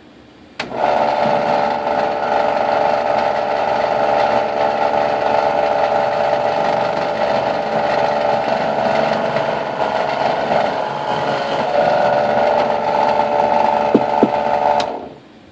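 Benchtop drill press drilling into a wooden board: a click about half a second in, then the motor runs steadily for about fourteen seconds, and a second click near the end before it quickly winds down.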